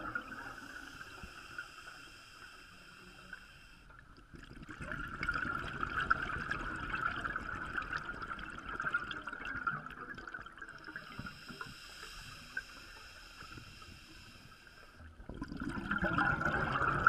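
Scuba diver's breathing recorded underwater: long bubbling exhalations from the regulator, about four seconds in and again near the end, with quieter stretches between them, over a steady hum.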